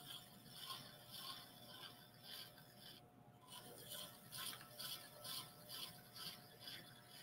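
Faint, rhythmic scraping of a small metal trimming tool cutting into leather-hard clay at the foot of a thrown urn, about two strokes a second, with a short pause about three seconds in.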